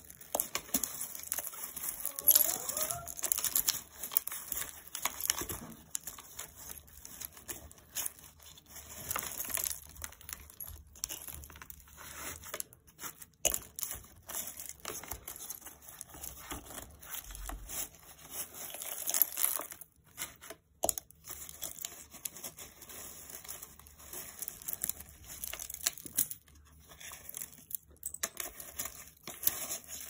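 Crinkling and rustling of confetti, paper bits and fluff as a hand rummages through a vacuum's clear plastic dust bin, clearing a clog. The sound comes in irregular bursts, with no motor running.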